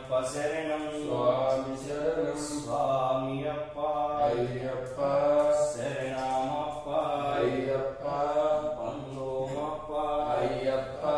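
A male voice chanting Hindu mantras in a continuous, melodic recitation.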